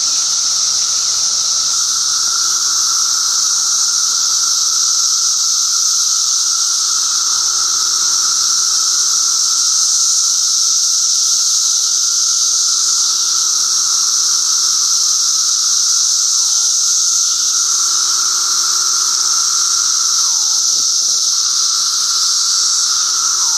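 Chorus of many Brood XIII seventeen-year periodical cicadas singing together: a loud, steady, unbroken high hissing whine over a lower steady droning tone.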